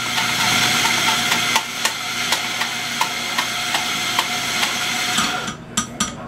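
Steady machine hiss with a faint hum and light ticks about twice a second, cutting off suddenly about five and a half seconds in, followed by a few soft clicks.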